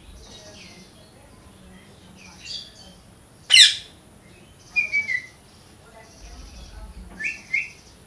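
Parakeet calling: one loud, harsh downward-sweeping screech about three and a half seconds in, shorter calls around five seconds, and a pair of quick notes just after seven seconds, with faint chirps between.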